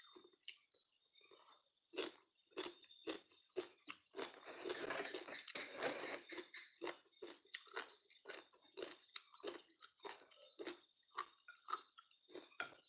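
Close-up chewing and biting of crisp, crunchy food: a quick run of sharp crunches, thickening into a steady stretch of crunching a few seconds in, then back to separate crunches.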